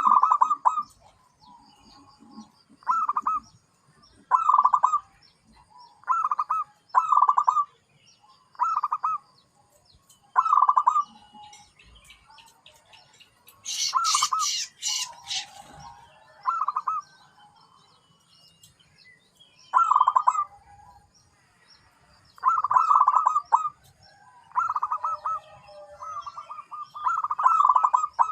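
Zebra dove (perkutut) cooing over and over, each short rolling phrase pitched around 1 kHz and repeated every second or two, coming closer together near the end. A brief high, raspy sound is heard about halfway through.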